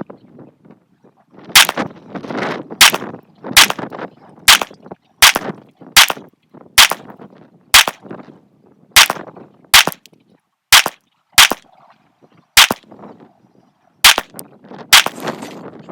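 A 9mm pistol with a red dot sight firing a slow, steady string of about fifteen shots, roughly one every second, each crack followed by a short echo. It is a test string of 115-grain rounds fired after a sight adjustment to check the zero.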